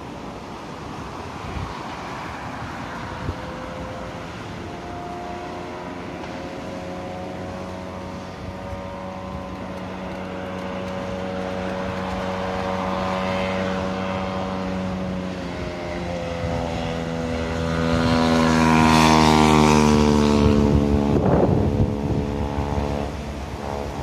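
Diesel railcar drawing closer along the line, its engine drone growing louder and shifting in pitch, loudest a few seconds before the end, over gusting wind.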